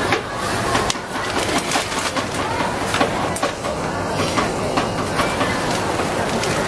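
Steady street-stall background noise, a continuous rumble with scattered small clicks and knocks from utensils at the crepe griddle.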